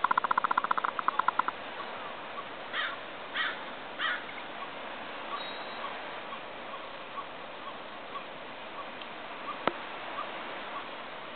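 Gulls calling: a rapid chattering run at the start, then three short harsh calls about three to four seconds in, with faint repeated chirps after. A steady hiss of moving water lies underneath, and there is a single sharp click near the end.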